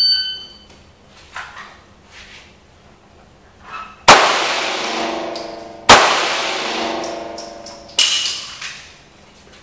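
A shot timer's short start beep, then three handgun shots inside an indoor range, each with a long echoing tail: two loud shots about two seconds apart, then a slightly quieter third about two seconds later.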